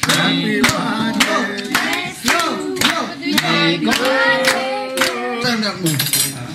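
A group of people singing a birthday song together and clapping in time, about two claps a second.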